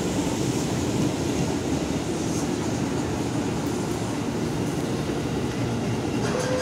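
KRL electric commuter train beside the station platform, giving a steady low rumble and hum.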